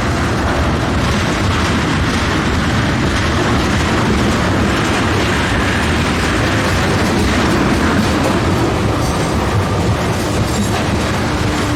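A freight train of loaded tank cars rolling past close by: a loud, steady rumble of steel wheels on rail.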